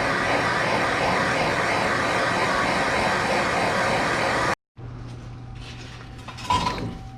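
Steady, loud rushing noise with no clear pitch, which cuts off abruptly a little past the middle. It is followed by a much quieter low hum with a few faint clicks near the end.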